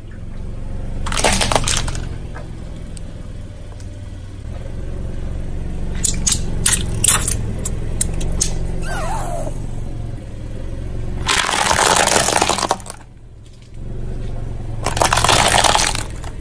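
A car's engine running low and steady while its tyre rolls over and crushes plastic objects and dry pasta. There are sharp cracks about six to seven seconds in, and loud crunching bursts about a second in, around eleven to thirteen seconds, and again near the end.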